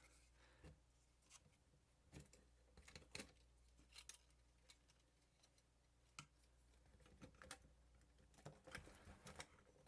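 Faint, scattered clicks and taps of small camcorder parts and wires being handled during reassembly, over a low steady hum.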